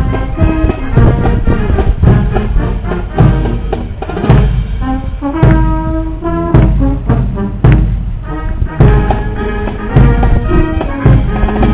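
Military marching band playing a march as it passes: brass with sousaphones, over a steady bass drum beat.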